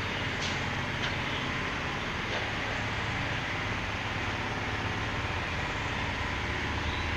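Steady road traffic noise: a low vehicle rumble under a hiss, with three faint clicks in the first few seconds.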